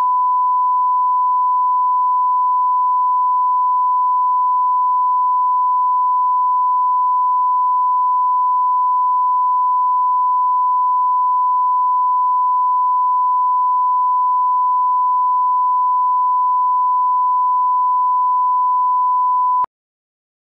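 Steady 1 kHz line-up tone, the reference tone that runs with colour bars at the head of a video master, a single unchanging beep that cuts off abruptly near the end.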